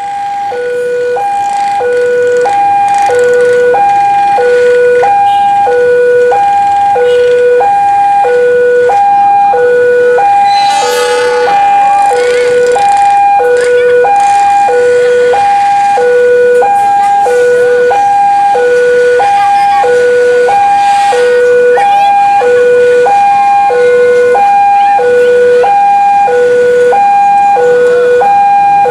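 Railway level-crossing warning alarm sounding as a train approaches: an electronic two-tone ding-dong, a lower and a higher tone alternating steadily, each about half a second long.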